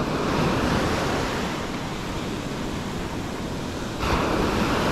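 Surf breaking and washing up the sand, with wind buffeting the microphone. A wave's wash swells louder about four seconds in.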